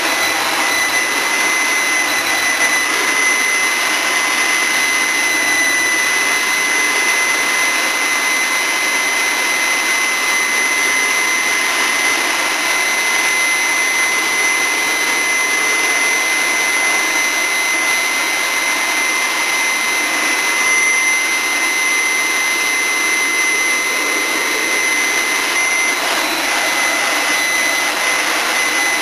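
Leaf blower running steadily: a rush of blown-air noise with a high, steady whine over it that holds the same pitch throughout.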